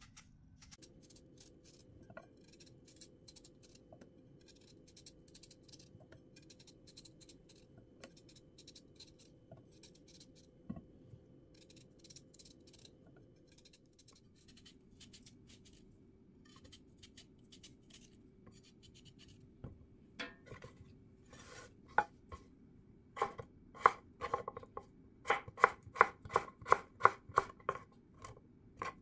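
A chef's knife peeling the skin off a Korean radish in quiet scraping strokes. From about twenty seconds in, it slices the peel into thin strips on a wooden cutting board, with louder knife strikes on the board about two to three times a second.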